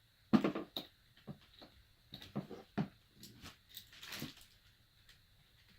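Parts of a kids' ride-on electric Jeep kit being handled and set down: a sharp knock about a third of a second in, then a scatter of lighter knocks, clicks and rustling.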